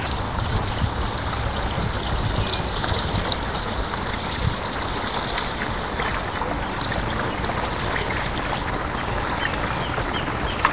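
Steady rushing, water-like noise with light splashes scattered through it, as kayak paddles dip into the river.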